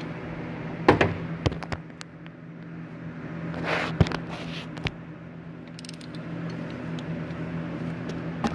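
A few sharp metallic clicks and knocks of a hand tool being fitted to and worked on the starter's 17 mm mounting bolt, with a short rustle in between. A steady low hum runs underneath.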